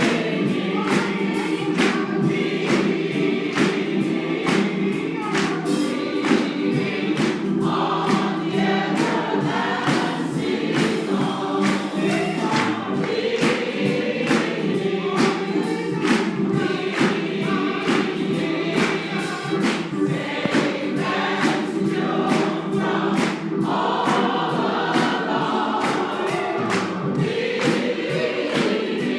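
Congregation singing a gospel song together, many voices at once, over a steady beat of sharp strokes about twice a second.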